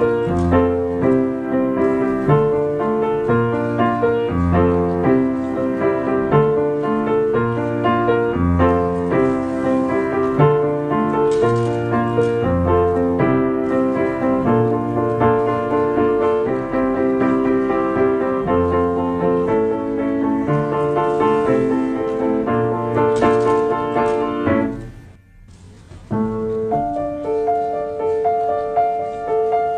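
Piano accompaniment playing steady chords over a bass line, with no voice. It breaks off for about a second near 25 seconds in, then picks up again.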